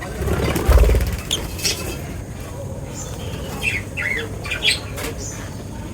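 Birds chirping and squawking in short, high calls scattered throughout. A loud low thump comes just under a second in.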